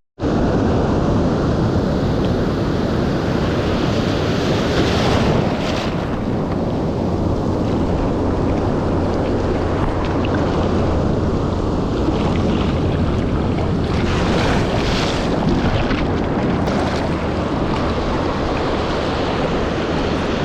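Ocean surf and wind buffeting an action-camera microphone: a steady rush of noise that swells louder about five seconds in and again around fourteen to fifteen seconds in. It cuts out for an instant at the very start.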